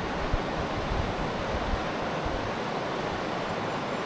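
Steady rush of a backcountry river running over its stones. Low wind buffeting on the microphone fills the first two and a half seconds, then dies away.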